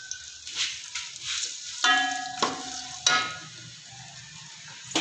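Sliced onions sizzling in hot oil in an aluminium pot, being fried to brown them. A spoon stirs them, scraping and knocking against the pot several times, loudest about two and three seconds in.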